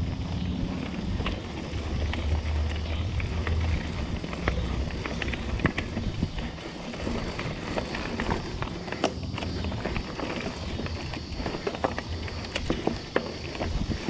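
Diamondback Atroz 3 mountain bike riding down a rocky dirt trail: tyres rumbling over dirt, rocks and roots, with frequent sharp clicks and rattles from the bike as it jolts over the rough ground.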